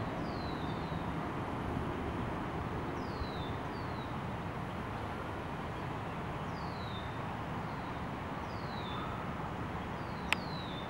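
Mallard ducklings peeping: short, high notes that fall in pitch, often two in quick succession, every second or two, over steady background noise. A single sharp click near the end.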